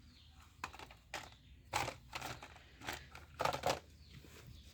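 Crinkling and rustling of handled toy packaging and plastic, in about half a dozen short, separate bursts.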